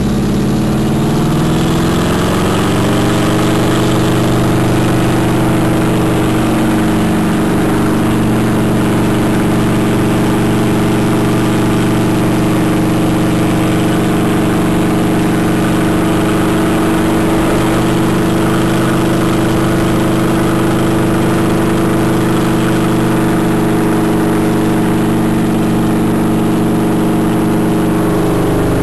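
Piston helicopter's engine and rotor heard from inside the cabin, rising in pitch over the first few seconds as it comes up to speed, then running steadily, with a slight drop in pitch near the end.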